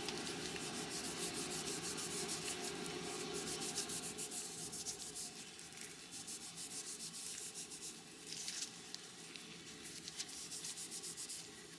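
Rapid rhythmic rubbing strokes on the small steel pipe wrench as it is being cleaned by hand, about four strokes a second. They grow fainter about halfway through and go on in short spells.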